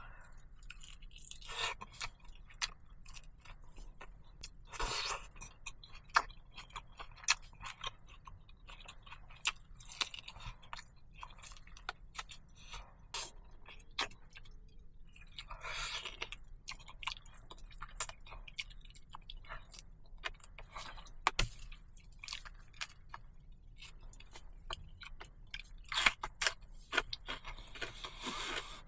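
A person eating at close range: chewing and crunching food, with scattered small clicks and a few longer rustling bursts.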